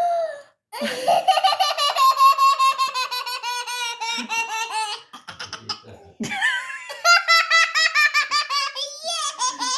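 A young child laughing hard: high-pitched belly laughter in two long bouts with a short break about halfway through.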